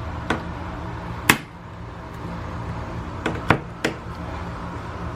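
Several sharp, irregular clicks and taps of a plastic Turnbuckle tile leveling clip being twisted in a grout joint and knocking against the tile, over a steady low hum.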